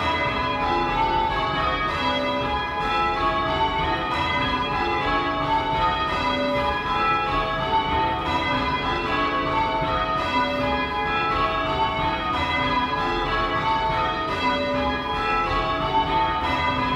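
A ring of six cast iron church bells being rung in call changes, heard close up in the bell chamber: the bells strike one after another in a steady, even rhythm, repeating the same row, each note ringing on under the next.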